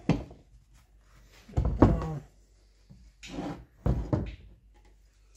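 Several clunks and knocks of metal gearbox parts being handled and fitted into the housing, four separate bumps with short pauses between.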